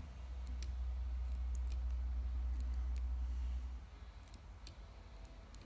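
Small fly-tying scissors snipping excess fibers off a Clouser Minnow held in a tying vise: a scattering of faint clicks. A low rumble sits under the first few seconds and stops about four seconds in.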